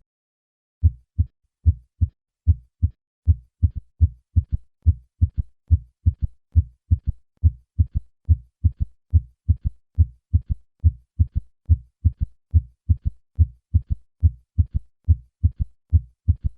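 Heart sounds heard through a stethoscope: the first and second heart sounds followed by a low-pitched third heart sound in early diastole, making a steadily repeating triple rhythm, the ventricular gallop. It starts about a second in. In patients over 40 this sound usually indicates heart failure.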